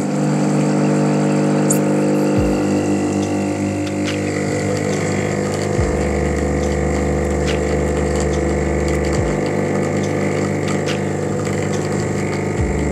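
Espresso machine's pump running with a steady loud hum while coffee pours into two cups; its low note shifts every three seconds or so.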